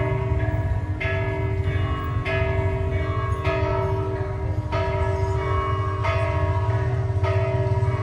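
A church bell tolling, struck about once every second and a quarter, each stroke ringing on into the next, over a steady low rumble.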